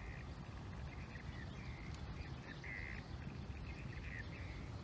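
Faint outdoor ambience with a low steady rumble and a bird chirping in short, repeated calls.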